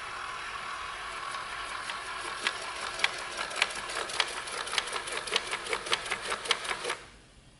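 Robot vacuum cleaner running, a steady whir with irregular clicking that grows busier, then stopping abruptly about seven seconds in.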